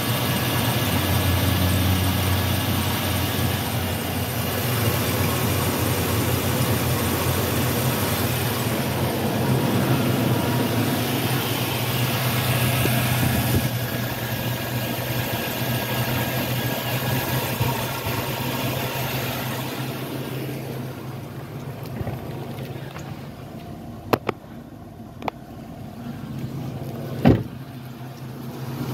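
GM 1500 pickup's Vortec engine running at a raised idle after starting, the idle settling lower and quieter about two-thirds of the way through. A few sharp clicks near the end.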